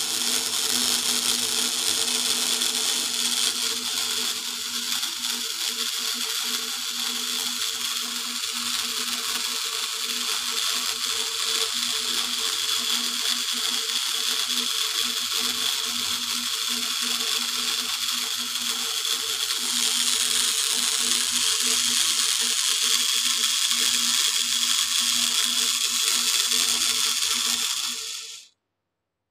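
Automatic agarbatti (incense stick) making machine running steadily on its VFD-driven motor: a steady motor hum under a loud mechanical hiss and rattle. The hiss grows a little louder about two-thirds of the way in, and the sound cuts off suddenly near the end.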